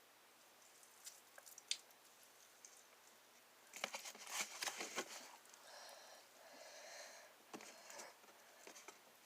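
Homemade slime squished and pressed by hand: faint sticky crackling and squelching, a few scattered clicks at first, a denser burst about four seconds in, then a softer rustle.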